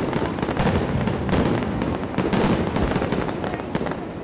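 Aerial fireworks going off in quick succession: many sharp bangs and crackles come close together over a continuous low rumble, with no pause between them.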